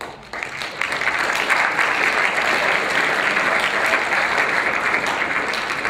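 Audience applauding, rising over the first second, then holding steady.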